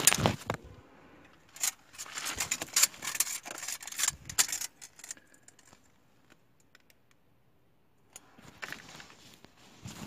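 Tape measure being handled against brickwork: its steel blade rattling and scraping on the bricks in a run of sharp clicks and clatters, busiest between about two and five seconds in, with a shorter burst near the end.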